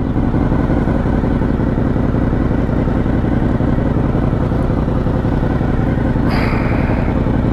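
Honda VFR750's V4 engine idling steadily. About six seconds in, a short hiss joins for about a second.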